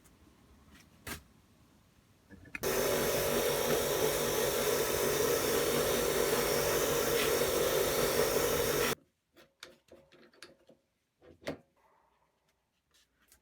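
An electric power tool running steadily for about six seconds, starting and cutting off abruptly. Before it comes a single knock, and after it a few scattered light knocks of tools or parts being handled.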